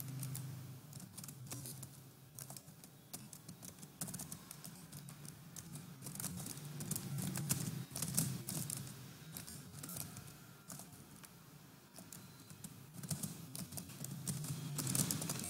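Typing on a computer keyboard: irregular, quick key clicks as a line of C code is entered, over a faint low steady hum.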